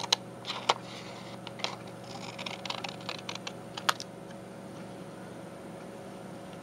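Scissors snipping and crinkling thick paper paint sample cards: several sharp snips with smaller crackles in the first four seconds, then only a faint steady hum.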